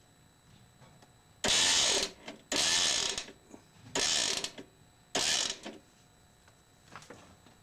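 The homemade ATV plow's cable lift winding in four short mechanical bursts about a second apart, raising the plow's push frame.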